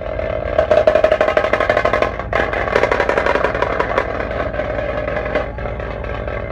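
Fast, dense drumming, many strokes a second, over a steady held tone, with a brief break a little over two seconds in.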